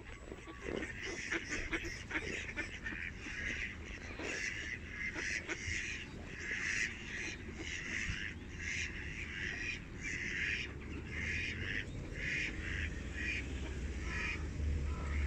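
A flock of mallard ducks calling, a steady run of short quacking calls about one or two a second that thins out near the end. A low rumble comes in over the last second.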